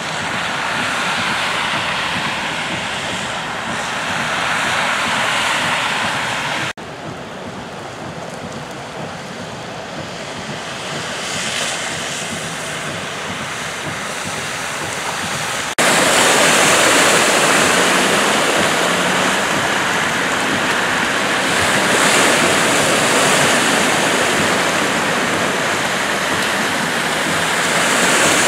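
Cars driving through a flooded street, their tyres throwing up water, over the steady hiss of heavy rain. The sound cuts abruptly twice and is louder after the second cut, just past halfway.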